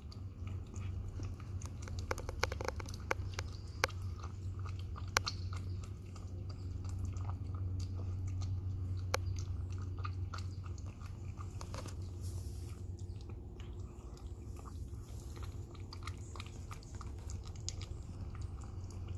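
A cat chewing and lapping wet cat food: many small irregular wet clicks and smacks. A steady low hum runs underneath.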